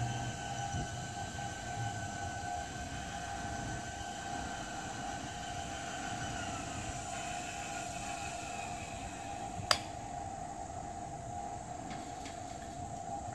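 Electric swing gate operators whining steadily as the double chain link gate leaves swing shut. A higher tone slides down and fades about halfway through, and there is one sharp click near the end.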